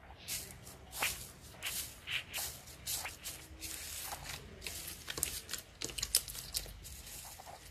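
Slime being squished and poked: an irregular run of wet crackles and small pops.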